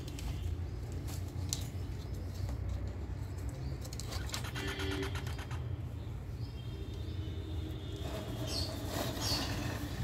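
Rose-ringed parakeet and its chicks at a wire cage, over a steady low rumble. Around the middle comes a quick run of clicks, and near the end a few short, high chirps.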